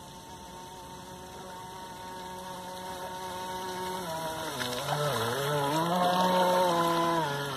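Radio-controlled model boat's motor running as the boat approaches across the water, growing steadily louder. Its pitch dips and climbs back about five seconds in, is loudest as the boat passes close, and drops near the end.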